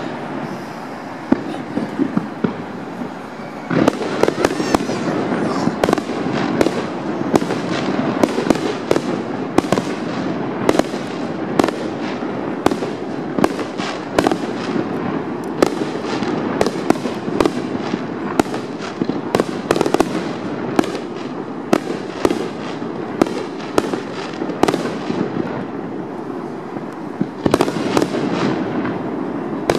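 Aerial firework shells bursting in rapid succession, many overlapping bangs over a constant rumble and crackle. The barrage thickens about four seconds in.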